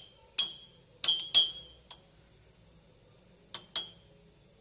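Spoon clinking against a cup: six sharp, ringing clinks, four in the first two seconds and two more close together about three and a half seconds in.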